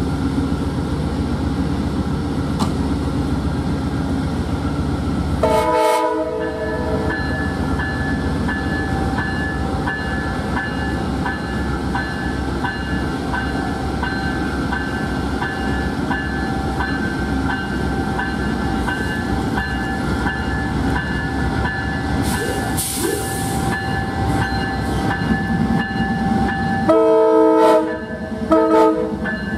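Amtrak P42DC diesel-electric locomotive pulling out under power, its engine giving a steady low rumble. Its Nathan K5LA air horn sounds one blast about six seconds in, and near the end a longer blast followed by a short one. A brief hiss of air comes a few seconds before the end.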